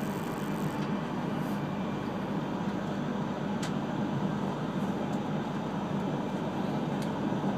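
Steady running noise heard inside the cabin of an E3-series Yamagata Shinkansen train under way: a low rumble of wheels on rail with a couple of faint clicks.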